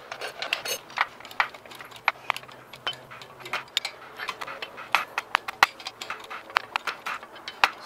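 Ratchet wrench clicking in short irregular runs as it turns the forcing screw of a bearing puller, drawing the pinion bearing onto a Ford 8.8 differential's pinion shaft.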